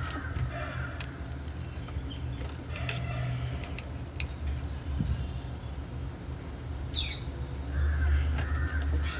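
Birds calling in the background: short high chirps early on and a falling call about seven seconds in, over a steady low hum, with a few light clicks.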